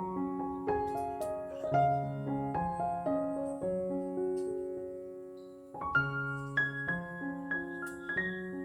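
Background piano music playing a slow run of single notes and chords; it fades about five seconds in, and a new phrase starts near six seconds.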